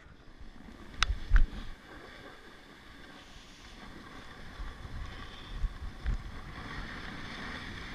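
Snowboard sliding over groomed, tracked snow: a steady scraping hiss from the base and edges that builds after the first few seconds. Two short knocks come about a second in.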